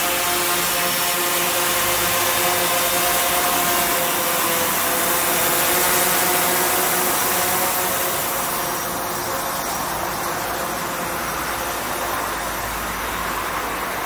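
DJI Phantom 4 Pro quadcopter flying, its propellers and motors giving a steady multi-pitched whine over a rushing hiss. The sound eases a little after about eight seconds.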